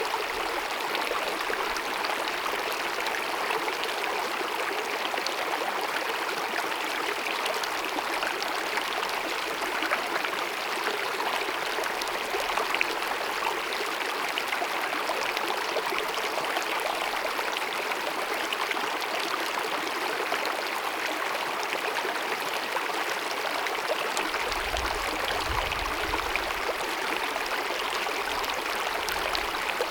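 Small glacier-fed mountain meadow stream babbling and cascading, a steady even rush of running water, with a brief low rumble about 25 seconds in.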